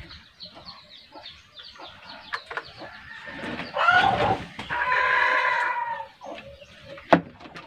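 A rooster crows once, about two and a half seconds long, beginning about three and a half seconds in: a rising and falling opening, then a long held note. Chickens cluck faintly before it, and a single sharp knock comes near the end.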